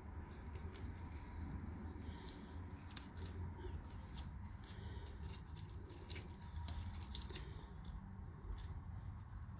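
Fingernails picking and scratching at a vinyl decal on a painted bicycle frame tube as it is peeled off: a faint, irregular string of short scratches and ticks.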